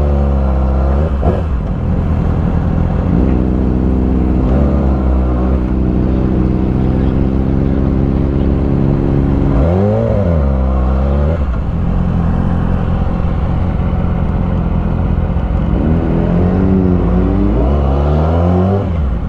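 Motorcycle engine running under way, heard from the rider's position. Its revs climb and drop back about halfway through, then rise in several steps near the end as it accelerates through the gears.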